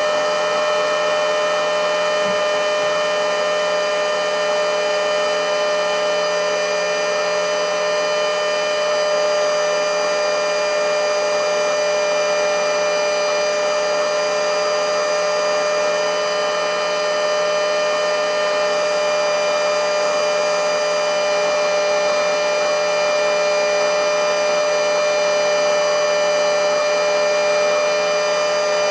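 Mini handheld blowing/sucking vacuum cleaner's small high-speed turbo fan motor running flat out with a steady, high-pitched whine. It is on its battery past the point, about seven minutes into the run, where it begins to lose power.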